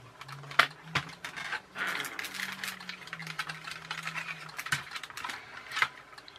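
Clicks, knocks and scraping of a plastic RC car chassis and its small can-type motor being handled, with a few sharp taps and a short stretch of rustling scrapes.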